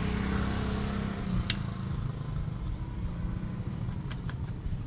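An engine running steadily, its hum fading after about a second and a half, with a sharp click around then and a few light clicks later.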